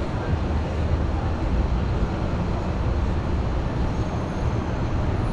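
Steady low rumble of downtown street noise, with no distinct events standing out.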